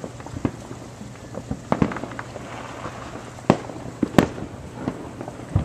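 Fireworks going off around the neighbourhood: irregular pops and bangs, with several louder reports in the second half.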